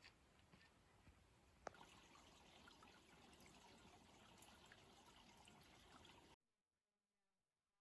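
Near silence: a faint trickle of creek water with one small click, cutting off abruptly about six seconds in.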